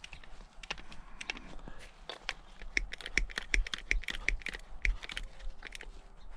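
Hand tools clicking and knocking while a battery jumper cable is made up: a run of sharp small clicks, quickest and loudest in the middle, at about four a second.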